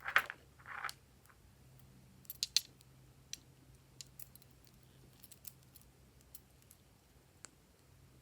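Glossy slime being worked by hand: two short squishes at the start, then scattered sharp clicks and small pops, the loudest a few seconds in.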